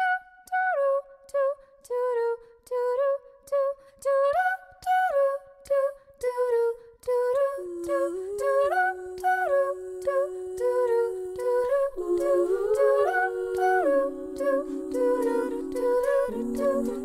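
Background music: an a cappella-style melody of short hummed notes separated by brief gaps, with held lower voices coming in underneath about halfway through.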